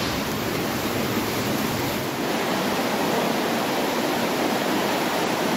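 Floodwater rushing in a steady torrent, a dense even roar of moving water.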